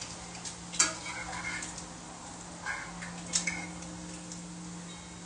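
Cooking utensils clinking and clattering against pans and dishes a few times, the loudest clack about a second in, with a low steady tone underneath.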